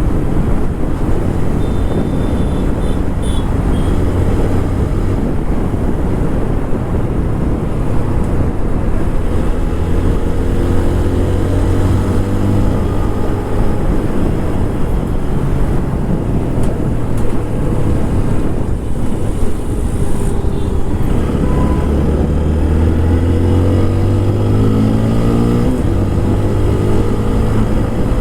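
TVS Apache RTR 160 4V's single-cylinder engine running through its stock exhaust while riding. The revs climb twice, and the second climb drops suddenly near the end, as at a gear change.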